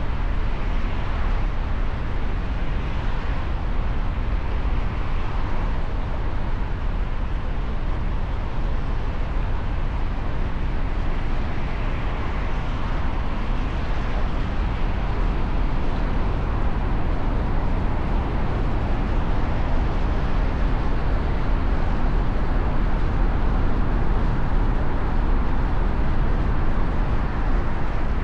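Steady road-traffic noise with a strong, even low rumble; no horn or other sudden sound stands out.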